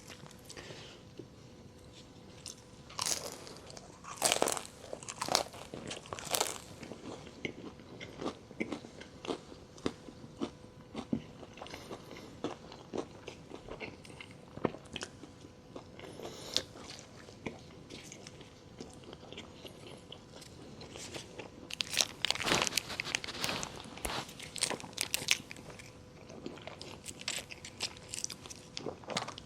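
Close-miked eating of Taco Bell food: crunchy bites and chewing, with two louder runs of crunching bites, one a few seconds in and one about two-thirds of the way through.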